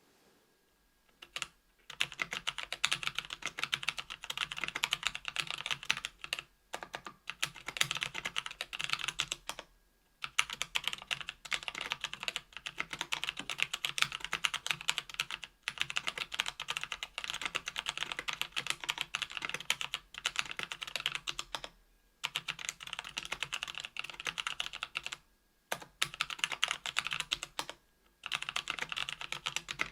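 Typing on a KBDfans Tofu 65% mechanical keyboard with an aluminium case and plate, GMK keycaps and stock Kailh Speed Copper 60 g tactile switches: dense runs of key clacks that start about two seconds in and break off in short pauses every few seconds.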